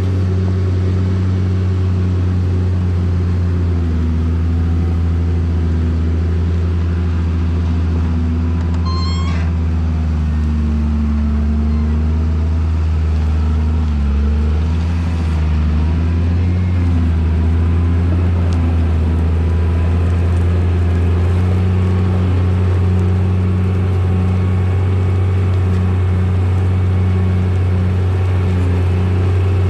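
Motor grader's diesel engine running steadily with a deep, even drone, its pitch shifting slightly as the machine works. A brief high chirp is heard about nine seconds in.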